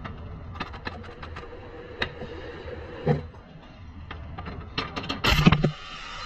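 Hand work on a car's rear suspension: scattered metallic clicks and knocks, with a louder, heavier clunk a little after five seconds.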